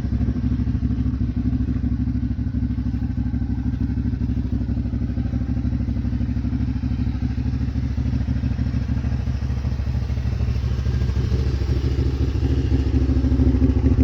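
Kawasaki Brute Force 750's fuel-injected V-twin running steadily at idle through a full Muzzy exhaust, a dyno-tuned setup. It gets slightly louder near the end.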